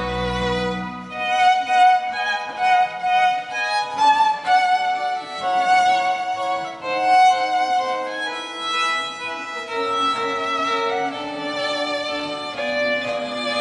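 Violin playing a melody over pipe organ accompaniment; the organ's low sustained bass notes drop out about a second in.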